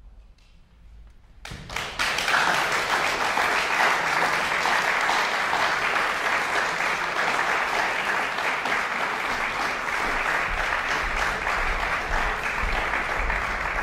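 Audience applause breaks out about one and a half seconds in and continues steadily, a dense even clapping from a full hall.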